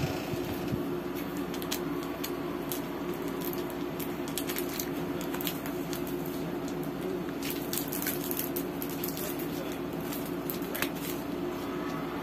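Clear plastic packaging crinkling and rustling in irregular crackles as a bagged set of magnetic paper doll sheets is handled and leafed through, over a steady low hum.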